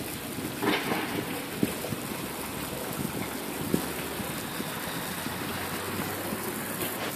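Steady rushing hiss of running water, with a couple of faint knocks.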